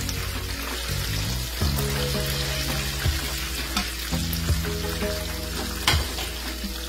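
Chicken patties frying in hot oil, a steady sizzle, under background music with a bass line; two sharp clicks about three and six seconds in.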